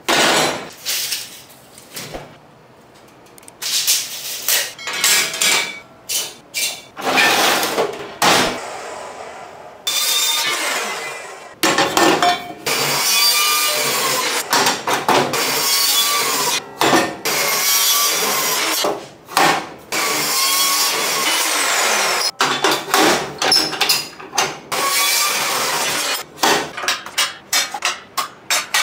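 Metal-shop sounds in short edited segments: a DeWalt abrasive chop saw cutting through steel stock with a long grinding whine, amid clanks and scrapes of steel pieces being handled on a steel table.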